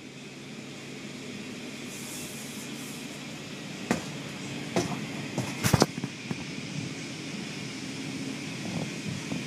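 Automatic tunnel car wash heard from inside the car: a steady rush of water spray over a low machine hum, growing slowly louder, with the cloth brush strips slapping against the car a few times around the middle.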